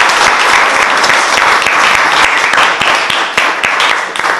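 Audience applauding, many hands clapping together; the clapping thins out and dies down near the end.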